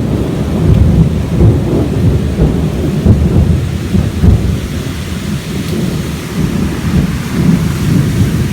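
Long rolling thunder, a low rumble swelling and fading unevenly, over the steady hiss of heavy rain.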